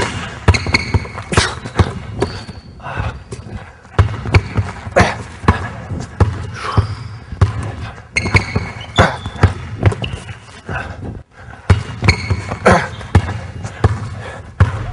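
Basketball dribbled hard and fast on a hardwood gym floor, each bounce a sharp slap at an irregular quick pace, as the player works through crossover moves. Short high squeaks, from sneakers on the court, come in between.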